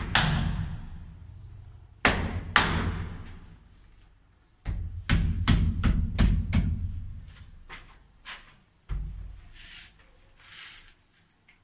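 Hand thumps on a ceramic wall tile as it is pressed and tapped into its adhesive. There is a sharp hit at the start, two more about two seconds in, a rapid run of knocks in the middle, and two softer thuds later.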